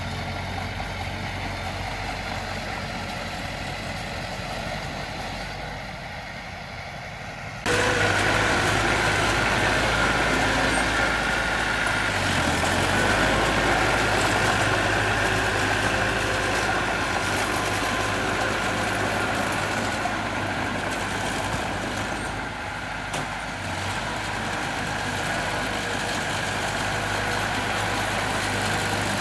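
Heavy construction machine's engine running steadily, with a low, even hum. About seven and a half seconds in, the sound steps abruptly louder and brighter.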